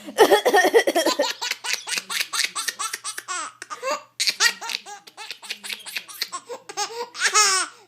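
Baby laughing hard, in long runs of quick repeated belly-laugh bursts with short breaks between them.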